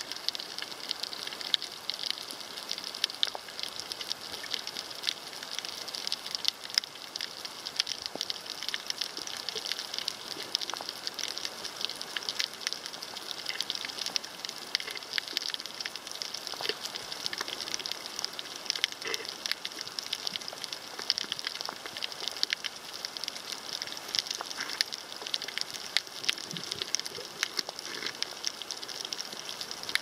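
Underwater crackling of a coral reef: a dense, steady patter of tiny clicks, with a few louder ones scattered through it.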